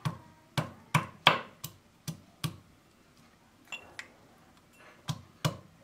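Pestle pounding garlic cloves in a small steel mortar: a quick run of about six sharp taps, a pause, then a few more strikes near the end.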